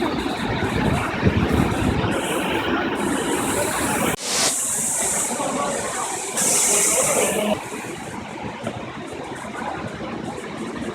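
Waterfall: a steady rushing of falling water that changes abruptly about four seconds in.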